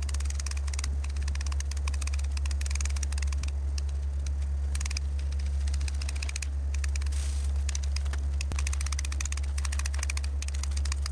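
Curved-blade manual hedge shears snipping through a hedge in quick runs of crisp clicks, broken by short pauses, over a steady low hum.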